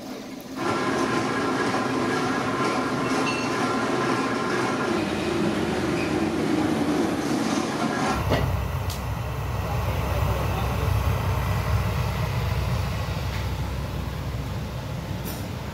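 A steady mechanical hum with a few faint tones gives way suddenly, about eight seconds in, to the low, even rumble of a gas burner flame burning in a brick firebox under a rubber-moulding press.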